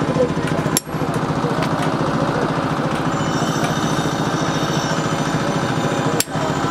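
A machine running steadily with a rapid, even pulsing beat, broken briefly twice.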